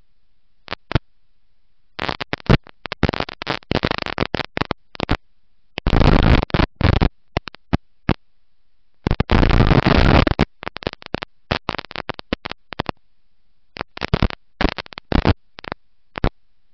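Harsh rushing noise, picked up by the camera microphone on a dirt track race car at speed, with no clear engine pitch. It cuts in and out in choppy bursts, loudest about six seconds in and again around ten seconds.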